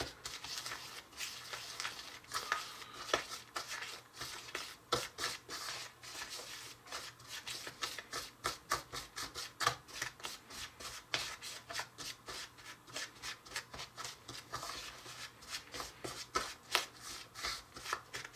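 Fingertips rubbing and pinching dry, crumbly sugar cookie mix in a small mixing bowl. The mix is still only lightly moistened, and it makes a steady gritty scratching with many small crackles, several a second.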